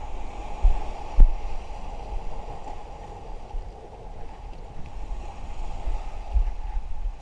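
Wind buffeting the microphone in gusts, over steady noise of small waves washing against rocks. There is one short click about a second in.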